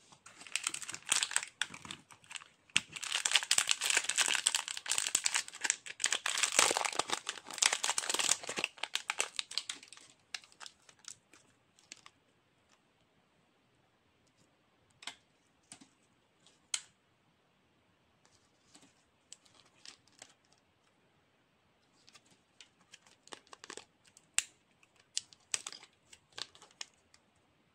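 Close-up crinkling of glossy sticker sheets and packaging being handled, dense for about the first ten seconds, then only scattered light clicks and rustles as a sticker is peeled off its sheet.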